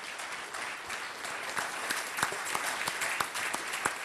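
Audience applauding steadily, with many hands clapping and a few louder single claps standing out.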